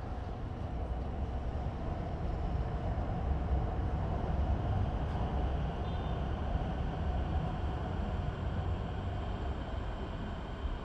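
Steady low rumble of passing vehicle traffic, swelling over the first few seconds and easing slightly near the end.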